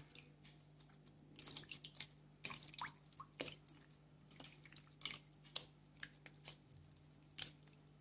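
Hand squeezing and kneading lumps of homemade butter in a plate of water, with faint, irregular splashes and squelches as the buttermilk is washed out of the butter.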